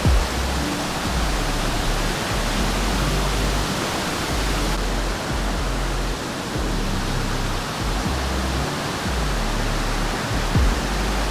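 Waterfall's steady rushing water, with background music's low notes underneath. Two brief low thumps, one at the start and one near the end.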